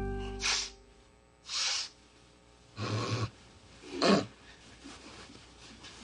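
A man snoring and snorting in his sleep through a stuffed-up nose: four noisy breaths about a second apart, the last and loudest as he starts awake. The tail of a music chord fades out at the very start.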